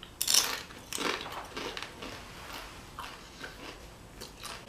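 Close-up eating sounds: a loud crisp crunch just after the start, then quieter irregular crunches and crackles of chewing and handling food.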